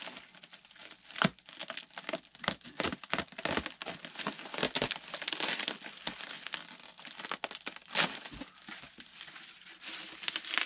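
Plastic bubble wrap and bagging crinkling and rustling as packed kit parts are handled, irregular crackles throughout with two louder sharp cracks, about a second in and again near the end.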